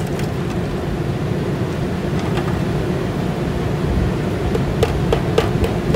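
Steady low rumble of urban outdoor background noise with a faint constant hum, as from distant traffic or machinery. A few light taps or clicks come near the end.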